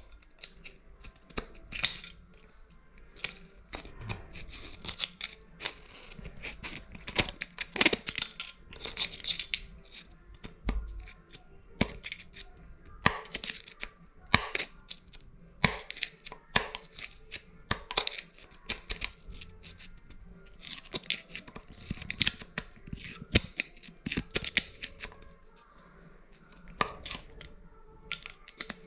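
Irregular clicks, taps and short scrapes of hand tools and metal parts being worked on a shower faucet valve during a cartridge replacement.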